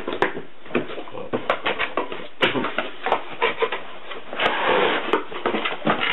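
Cardboard box being opened by hand: a quick run of clicks, taps and rustles as the flaps are worked loose, with a longer scraping rub about four and a half seconds in as the cardboard tray slides out.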